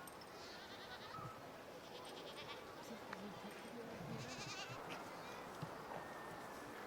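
Goats bleating, three short, trembling calls.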